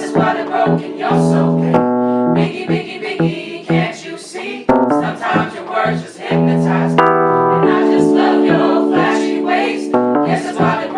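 A group of voices singing over sustained keyboard chords.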